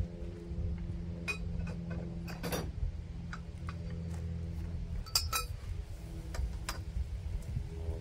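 Light metal clinks and taps, scattered irregularly and loudest about five seconds in, as parts of a bandsaw blade sharpener are handled during setup, over a steady low hum.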